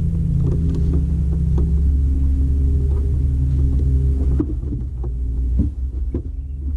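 Steady low motor hum and rumble with a few light clicks and knocks over it; the hum drops a little and changes pitch about four and a half seconds in.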